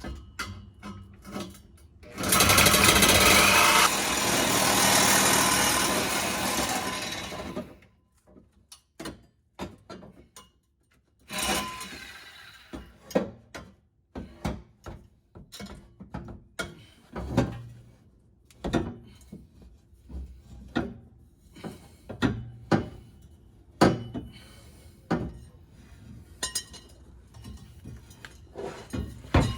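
A power tool runs loudly for about five and a half seconds, starting about two seconds in. Then come scattered sharp clinks and knocks of metal parts being handled during exhaust work.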